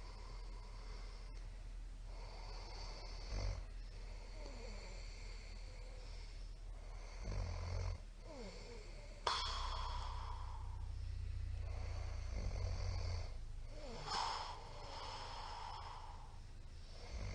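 A sleeping middle-aged man snoring in irregular rumbling snores. Two short ones come first, then a louder one starts abruptly about nine seconds in and lasts several seconds, followed by a short snort.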